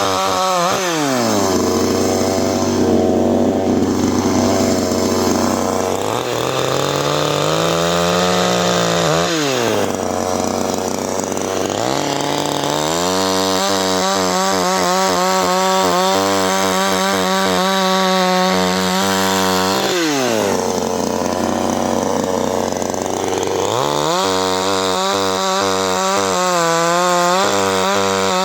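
CanFly 54.6 cc two-stroke chainsaw engine revved up to high speed and held there, then let fall back to idle, several times over. The longest high-speed run lasts about seven seconds in the middle, and the pitch wavers slightly while it is held high.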